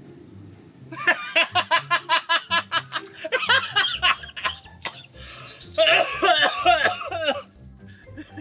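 A man laughing hysterically. It starts about a second in as a rapid run of short 'ha' bursts, and near the end gives way to a longer, high-pitched laugh.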